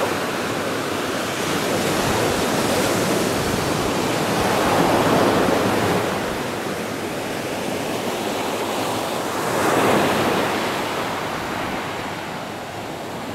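Sea surf breaking and washing up a sandy beach, a steady rush that swells louder as waves break about five and ten seconds in.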